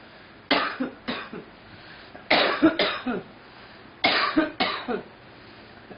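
A girl coughing in three double coughs, each pair about half a second apart, with a short pause between bouts.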